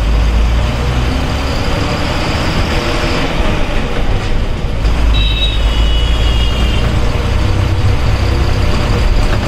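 Bus engine running and road noise heard from the driver's cab while the bus is under way. A short high-pitched tone sounds about five seconds in.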